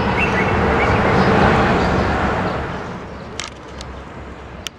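A rushing, traffic-like noise that swells for about a second and a half and then fades, with a few short chirps at the start and a few sharp clicks near the end.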